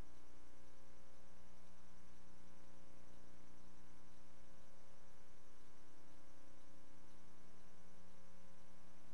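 Steady electrical hum with a faint hiss and nothing else: the empty soundtrack of a transfer of silent archival film.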